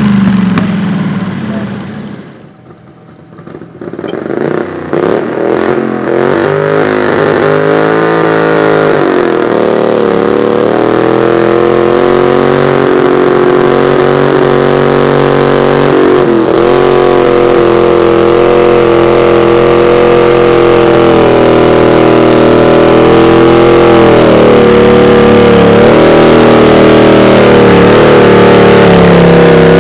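Modified pulling garden tractor's engine revving up about four seconds in, then running hard at high revs under load as it pulls the weight-transfer sled, with short dips in pitch along the way. Another engine note fades out over the first couple of seconds.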